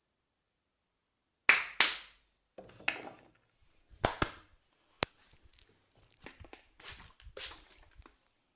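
Percussive massage strikes: a string of sharp, irregularly spaced cracks and slaps, the two loudest coming close together about a second and a half in and softer ones following.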